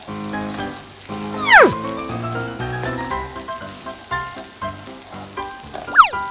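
Garlic sizzling gently in oil in a frying pan under background music with a melody. Two loud, quick falling-pitch sound effects cut in, about a second and a half in and again near the end.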